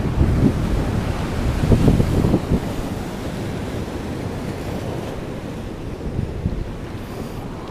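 Ocean surf washing over a rocky shore, mixed with wind buffeting the microphone. The wind gusts are strongest in the first couple of seconds, then the sound settles to a steadier rush.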